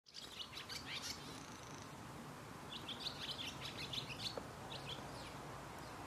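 European blue tits calling: two clusters of quick, high chirps, one about half a second in and one about three seconds in, with a few more just before the end.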